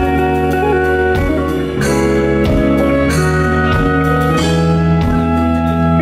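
Live band playing the instrumental intro of a pop song: held chords over a steady bass line, with light cymbal ticks keeping time.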